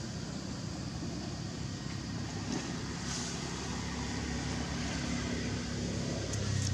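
A motor engine running steadily: a low, even hum that gets a little louder near the end.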